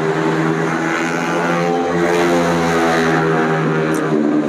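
Engine of a motor vehicle running close by: a steady drone, a little louder in the middle.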